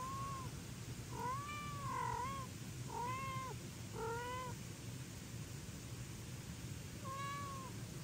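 Cats meowing: a string of short meows, each rising then falling in pitch, four in quick succession and one more near the end.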